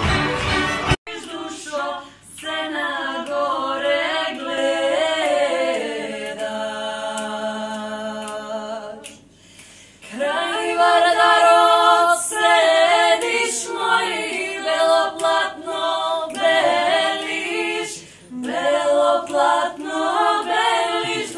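A small group of young women singing a cappella, several voices together, phrase after phrase with brief breaks between them. For about the first second it is still a folk band of fiddles and a cello playing, which cuts off abruptly as the singing begins.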